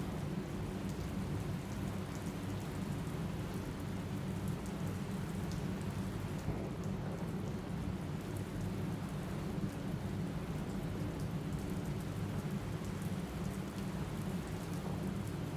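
Steady rain, with a constant low rumble underneath and scattered faint drop ticks.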